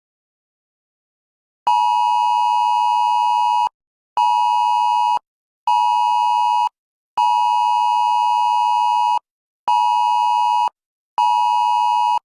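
Emergency alert attention signal: a harsh steady two-tone beep, pulsed long, short, short, then again long, short, short with brief gaps, the cadence of a Wireless Emergency Alert. It comes in after almost two seconds of silence and heralds a tornado warning.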